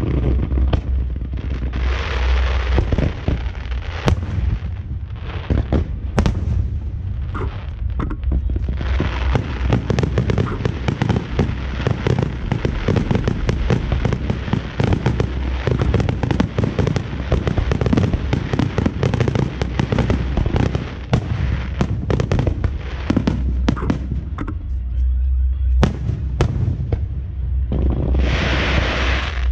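Fireworks going off in a dense, rapid run of bangs and crackles over a heavy low rumble, with a hissing rush about two seconds in and again near the end.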